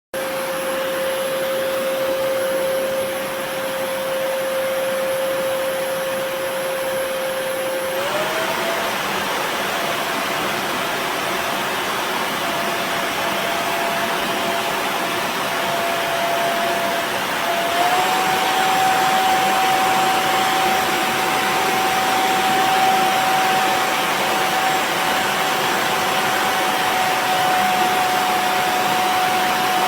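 ghd Helios hair dryer running, a steady rush of air with a motor whine. The whine steps up in pitch about eight seconds in and again a little past halfway.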